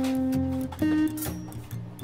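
Background music: a guitar-led track with held plucked notes over a moving bass line.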